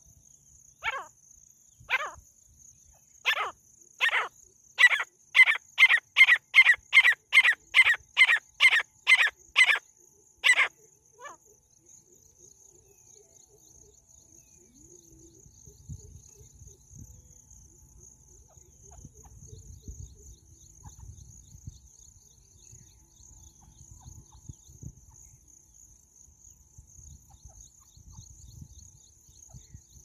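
Female francolin (teetar) calling: a series of sharp, loud notes, spaced about a second apart at first, then quickening to about two and a half a second before stopping abruptly about eleven seconds in.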